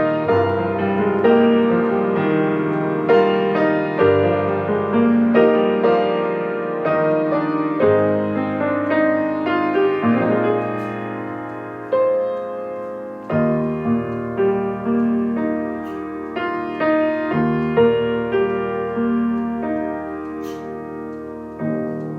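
Solo piano playing a slow piece: chords struck and left to ring and fade, with a melody above them.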